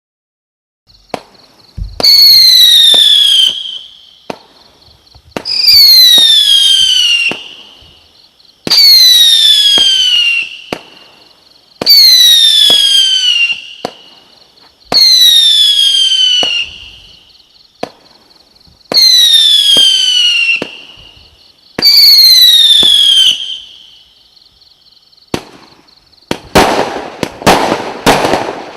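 A 49-shot 0.8-inch firework cake firing whistling comets: seven loud whistles, one about every three seconds, each falling in pitch, with sharp launch pops. Near the end it breaks into rapid crackling bangs from the crackling bursts.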